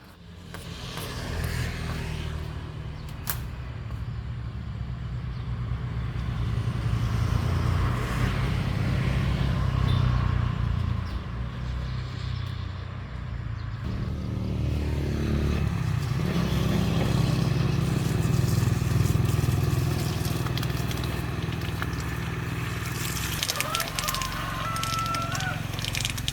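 The restored water pump machine's small engine running steadily after starting up. There is a brief dip and recovery in its note about fifteen seconds in.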